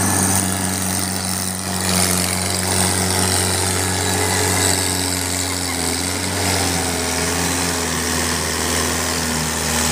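Mahindra Arjun 555 DI tractor's diesel engine running steadily under heavy load as it hauls a fully loaded sugarcane trailer.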